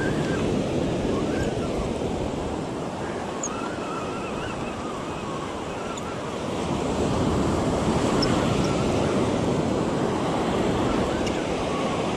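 Ocean surf breaking and washing up the beach, a steady rushing that grows louder about seven seconds in, with wind buffeting the microphone.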